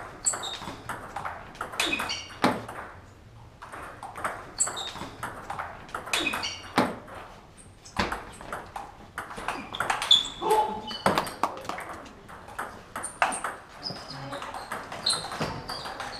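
Table tennis rallies: the ball clicks off bats and table in quick exchanges, several rallies in a row with short pauses between them.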